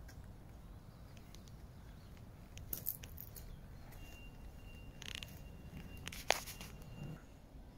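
Faint low background rumble with scattered light clicks and taps, the sharpest about six seconds in, and a faint thin steady tone for about three seconds in the middle.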